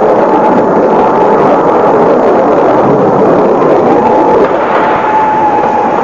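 Loud, steady rumbling roar of the missile interceptions and explosions in the sky, with the steady tone of an air raid siren faint beneath it.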